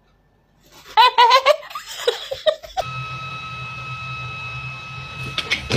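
A person giggling: a high-pitched run of short laughs about a second in. After that, a steady high whine over a low hum.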